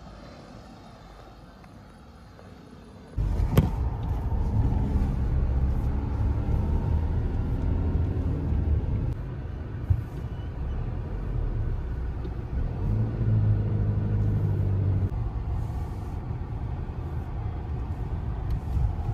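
Car driving: low engine and road rumble that starts suddenly about three seconds in, with a sharp click just after, and the engine pitch rising and falling a couple of times.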